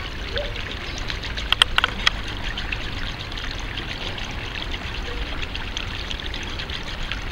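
Water running and trickling steadily in a swimming pool's overflow gutter. A quick cluster of sharp clicks sounds about a second and a half in.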